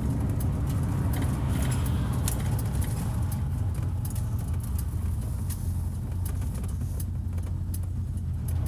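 A vehicle driving on the road: a steady low rumble of engine and road noise, with scattered light clicks and rattles throughout.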